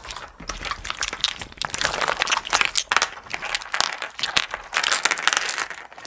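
Thick homemade slime full of flat glass pebbles being kneaded and pulled apart by hand: a dense, uneven run of sticky crackles and small pops, with glass pebbles clicking against each other.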